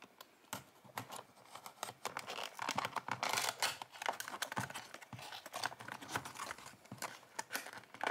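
A small cardboard toy box being opened by hand: a craft knife slitting the seal, then the flaps pulled open and a plastic-wrapped insert handled. It is a quick run of clicks, scrapes and crinkles, busiest about three seconds in.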